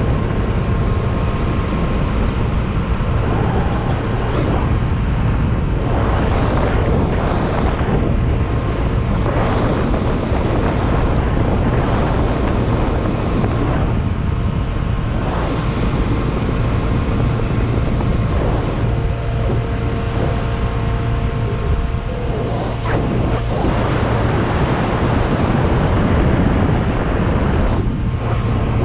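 Boat running at a steady cruise of about 27 knots: the carbureted 350 V8 MerCruiser sterndrive drones under wind buffeting the microphone and water rushing past the hull, with brief gusts here and there.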